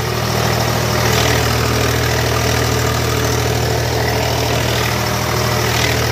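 Eicher 485 tractor's diesel engine running steadily under full load as it pulls a disc harrow through the soil.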